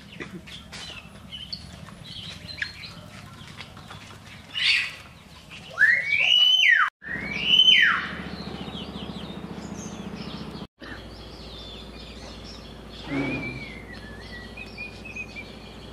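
Birds chirping and tweeting around a rural yard, with two loud bird calls about six and seven and a half seconds in that each rise in pitch and then fall, and another call near the end.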